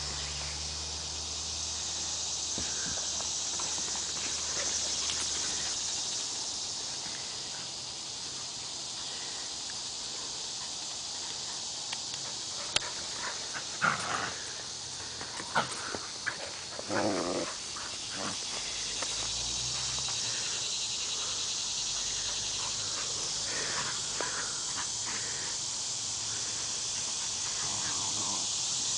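Dogs playing chase, with a cluster of short dog vocalizations and scuffling thumps about halfway through, over a steady high hiss.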